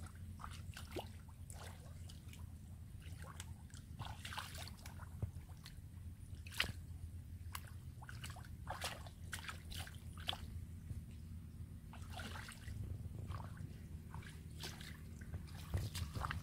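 Hands and bare feet stirring shallow muddy water, with irregular small splashes, drips and squelches of wet mud over a steady low rumble.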